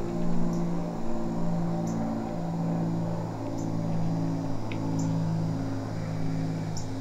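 Background music: held synth-like notes that change pitch about once a second over a steady low drone.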